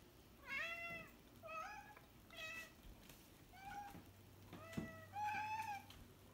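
Domestic cats meowing repeatedly, about six drawn-out meows in a row. They are demanding food: they have been taken off free feeding and their old bowl is empty.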